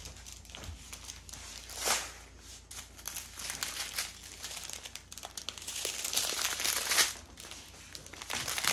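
Strips of small plastic bags of diamond painting drills crinkling and rustling as they are handled and laid across the canvas, irregular, with louder crinkles about two seconds in and again around the six- to seven-second mark.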